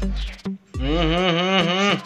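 Background music: a deep bass note, then a long held tone with a wavering pitch over a steady low drone, lasting about a second.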